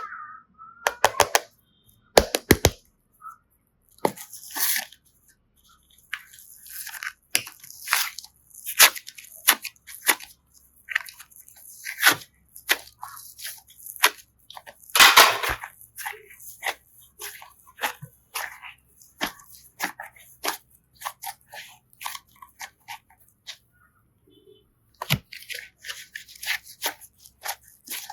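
Slime and clay being squeezed and pressed by hand, giving irregular crackling clicks and pops, with a longer, louder crackle about halfway through.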